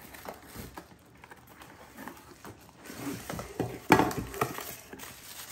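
Plastic wrapping crinkling and a cardboard box rustling as the packing is pulled out by hand, with a sharp knock about four seconds in.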